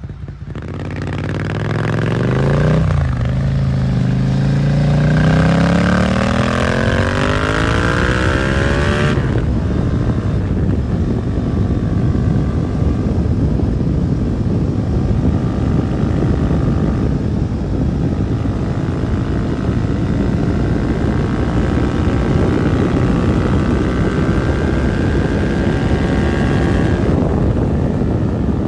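2022 Suzuki SV650's V-twin with an aftermarket Dominator GP exhaust accelerating hard: revs climb, drop at a gear change about three seconds in, and climb again to about nine seconds in. Then it runs at a steady speed under a broad rush of wind and road noise.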